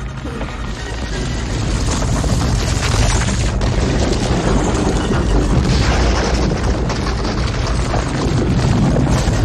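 Film sound effect of a giant stone boulder rolling, a loud continuous rumble with cracking noise. The effect was made by recording a Honda Civic's tyres rolling on gravel.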